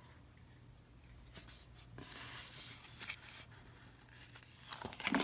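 Topps trading cards rustling and sliding against each other as a stack is thumbed through by hand, faint, with a few light clicks and a louder flurry of rustles near the end.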